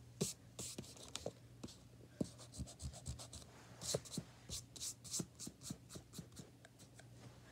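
A hand brushing and rubbing across sketchbook paper in short, irregular scratchy strokes, quickest about halfway through.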